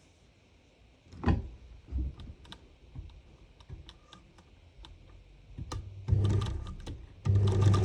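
Electric sewing machine running in two short bursts near the end, stitching fabric, after a knock and a few light clicks from handling the machine.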